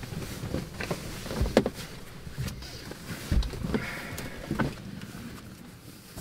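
Irregular knocks and rustling from bodies moving about inside a car, the loudest knock about a second and a half in, with a short squeak about four seconds in.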